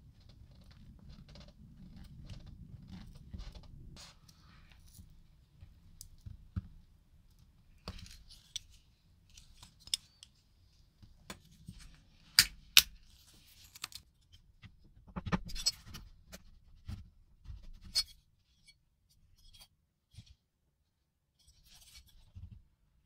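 Small parts and tools handled on a workbench: scattered light clicks, clinks and short scrapes, with two sharp clicks about twelve seconds in. A faint low hum underlies the first few seconds and fades away.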